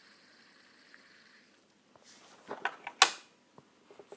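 Hand-handling of fidget spinners and their case: a few light clicks and knocks, then a short loud scraping rustle about three seconds in.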